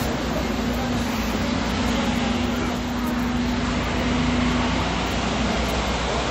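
City street traffic noise: a steady wash of passing cars and other vehicles, with a steady low hum that fades out about three-quarters of the way through.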